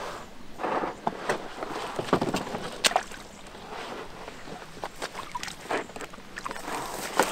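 A person climbing out of an inflatable packraft at the shore: irregular knocks, scrapes and rustles from the boat's fabric hull and paddle, with boots stepping onto stones near the end.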